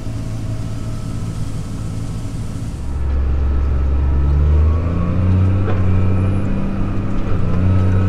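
Farm tractor engine running, heard from inside the cab, with a steady hiss over the drone. About three seconds in, the hiss stops and the engine drone becomes deeper and louder, its pitch shifting a little.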